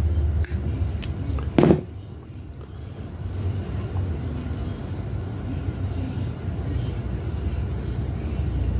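A steady low rumble, with a few light clicks in the first second and one short, louder knock about one and a half seconds in, as a fishing hook, crimp sleeve and monofilament line are handled.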